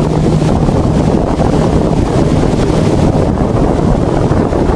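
Steady wind rushing over the microphone of a boat under way, with the low drone of its motor underneath; a faint steady hum fades out about half a second in.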